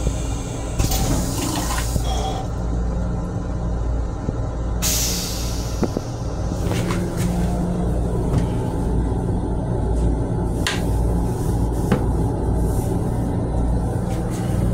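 Railcar restroom toilet with a stainless-steel bowl flushing: a loud rush of water starts about five seconds in and fades within a second or so. A steady low hum from the rail car runs underneath.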